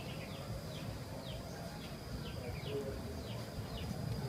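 A bird repeating a short, falling chirp about twice a second, over a steady high-pitched insect whine and a low rumble.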